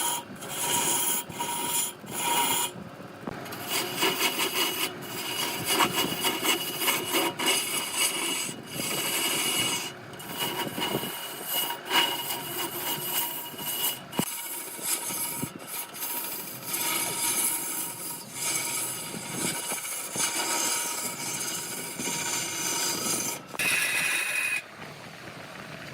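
Wood being cut on a running lathe: a rasping, scraping noise of the tool against the spinning wood that stops and restarts abruptly many times.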